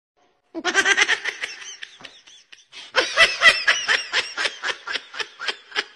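A person laughing hard in rapid, repeated ha-ha pulses. The laughter starts about half a second in, breaks off briefly a little past two seconds, then goes on again.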